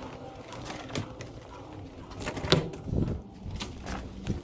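A bird cooing, with a few sharp clicks or knocks, the loudest about two and a half seconds in.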